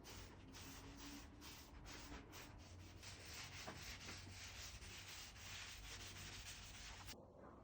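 Faint back-and-forth rasp of sandpaper rubbed by hand over wood, in even strokes about twice a second.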